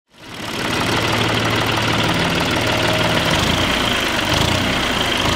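Tractor engine running steadily, fading in over the first second.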